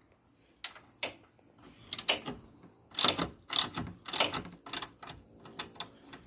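Ratchet wrench clicking in short bursts as the radiator mounting bolts are worked loose, with metallic rattles of the tool and bolts.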